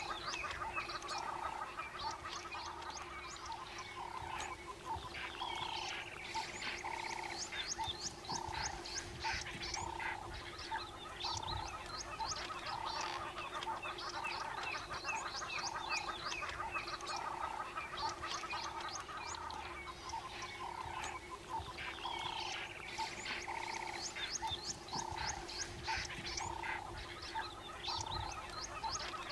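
Dense outdoor chorus of wild animal calls: one call repeats about every half second over a steady hum, with many quick high-pitched clicking calls above it and a longer gliding call twice.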